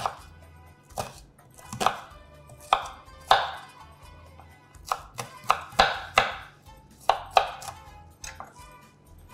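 Kitchen knife dicing an onion on a wooden cutting board: a series of uneven sharp knife strikes on the board, roughly one to two a second.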